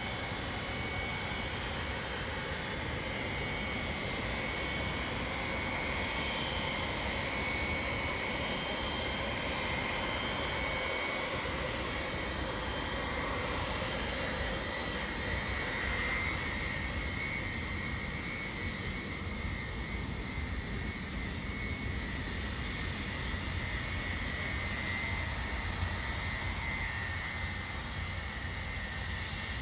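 Jet engines of a Boeing E-3A Sentry, its four TF33 turbofans, running at taxi power: a steady high whine over a broad roar and low rumble. The whine grows strongest about halfway through as the aircraft turns past.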